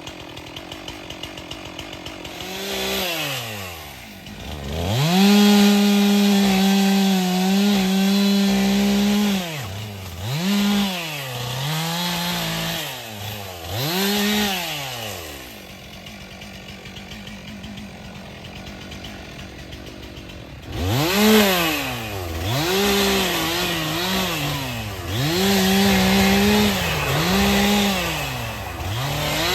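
Stihl MS 362 two-stroke chainsaw revved from idle to full throttle in repeated bursts, some held for several seconds and some short blips, dropping back to idle between them, as it cuts brush and small trees. It idles for a few seconds in the middle before revving up again.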